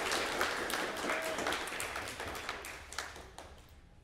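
Audience applause dying away, thinning to a few scattered claps and fading out near the end.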